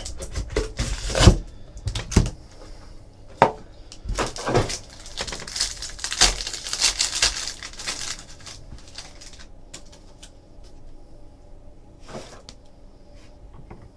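Foil trading-card pack pulled from its cardboard box and torn open by hand: crinkling wrapper with sharp clicks and rustles, busiest a few seconds in, then dying down to faint handling ticks.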